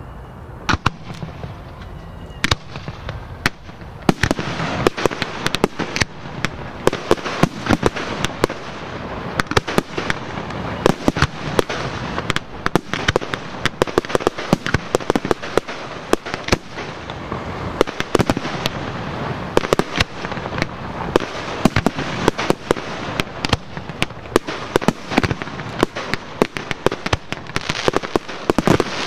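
Fireworks display: a dense, irregular run of sharp bangs from aerial shells and rising comets, sparse at first and thickening from about four seconds in.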